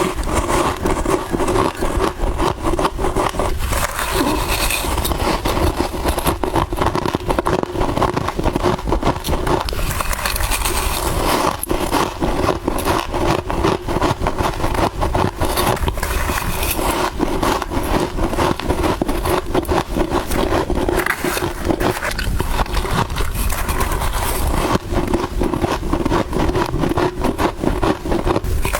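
Soft freezer frost being bitten and chewed: a dense, unbroken run of crisp crunches and crackles.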